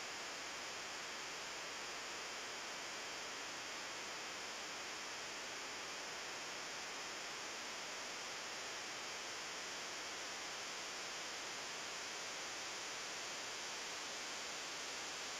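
Steady, even hiss with no distinct sounds in it, brighter toward the treble.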